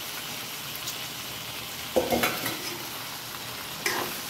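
Chicken and chopped taro leaves sizzling as they are stir-fried in a pan, a metal spatula scraping through them, with louder strokes about two seconds in and near the end.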